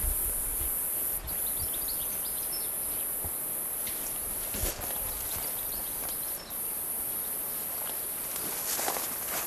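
Footsteps of someone walking on dry grass, a few soft steps heard over a steady high hiss, with scattered faint high chirps in the background.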